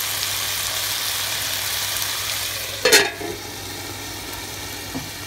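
Bamboo shoots and chicken sizzling as they are stir-fried in a pan. About three seconds in, a metal lid is set on the pan with one sharp clank, and the sizzle goes on quieter under the lid.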